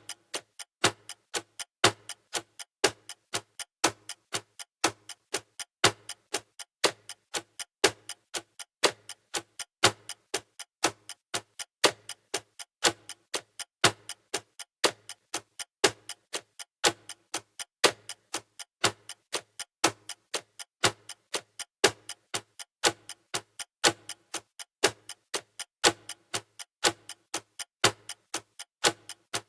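Clock ticking in a steady, even tick-tock rhythm, with a louder tick about once a second and softer ticks between.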